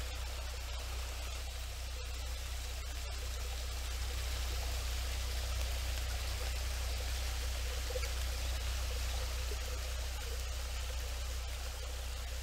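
Small waterfall: water pouring and trickling over a wet rock wall into a pool below, a steady rush that grows a little louder midway.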